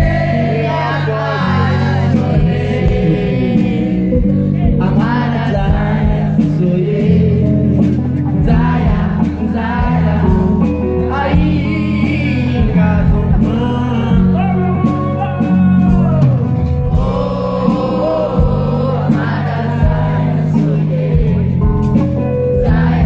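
A live song played through a PA: a man singing into a microphone with electric guitar and keyboard accompaniment.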